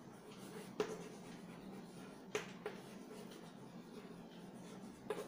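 Chalk writing on a blackboard: faint scratching with a few sharp taps as the chalk strikes the board.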